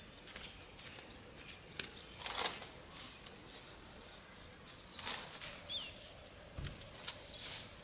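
Dry, sun-dried mustard greens rustling faintly in short scattered bursts as hands stir them in a woven bamboo drying basket, with one short high bird chirp partway through.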